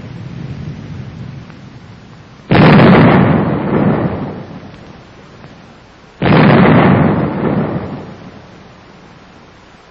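Two loud explosions, each starting suddenly and dying away in a rumble over a couple of seconds, the second about four seconds after the first.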